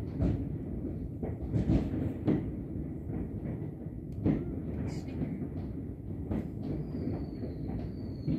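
Fireworks going off across a city: a continuous rumble of many explosions with sharper bangs scattered through it, the loudest about two seconds in and again near the middle. A thin high whistle, slowly falling in pitch, comes in near the end.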